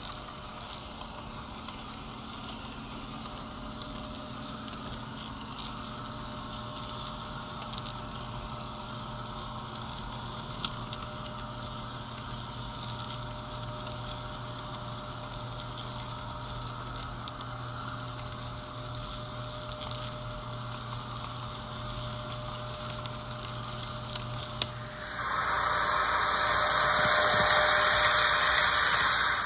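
HO scale model Tangara electric train running on its track: a steady low hum with a couple of light clicks, then for the last few seconds a much louder rushing hiss as it runs past close by.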